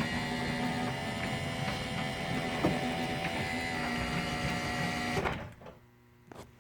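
Skylink side-mount jackshaft garage door opener running as it drives the door: a steady motor whine with a couple of light knocks, which stops abruptly about five seconds in.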